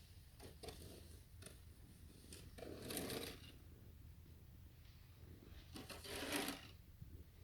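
A snow shovel scraping through snow twice, each stroke a little under a second long and about three seconds apart, with a few faint clicks before the first.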